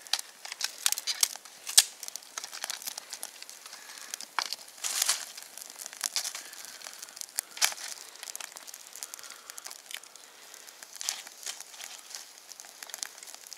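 Small kindling fire of bark, dry leaves and twigs crackling and snapping as it catches, with dry twigs and leaves rustling as they are handled and laid on the flames.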